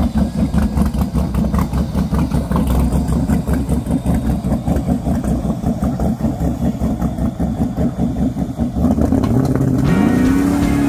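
LS V8 engine in a jet boat running at low speed with a loud, evenly pulsing exhaust through its water-injected pipes, then revving up hard about nine seconds in, its pitch climbing steeply and holding high as the boat takes off.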